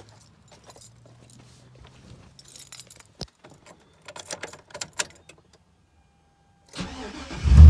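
Keys jangling and clicking, then near the end a short crank and the 2001 GMC Sierra's 5.3-litre V8 fires and starts right up. The sound marks a crank-no-start fault cured by new spark plugs and plug wires.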